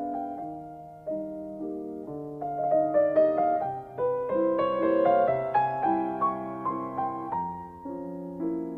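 Background music: solo piano playing a gentle melody over chords, a little louder in the middle.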